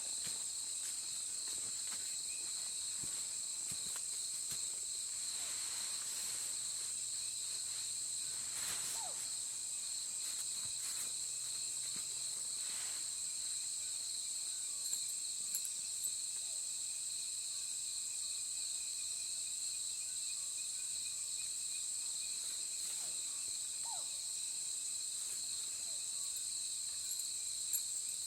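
Steady, high-pitched chorus of insects trilling without a break, with a few short falling chirps and faint ticks over it.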